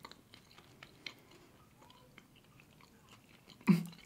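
Faint, close chewing of a soft yeast donut with the mouth closed: scattered small wet mouth clicks. Near the end a short, louder burst of voice cuts in.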